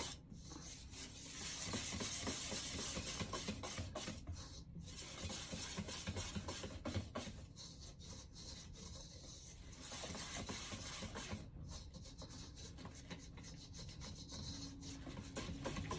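A whisk stirring dry glutinous rice and cassava powder into liquid in a metal bowl makes a scraping, rasping rub. It swells and fades with the strokes and pauses briefly a few times.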